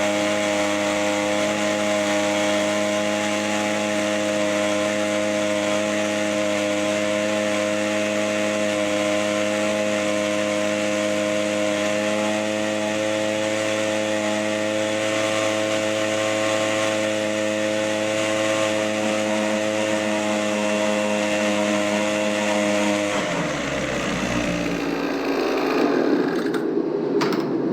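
Echo PB-2100 leaf blower's two-stroke engine running at a steady high speed, then falling back toward idle about 23 seconds in as the throttle is let off. A few sharp knocks come near the end.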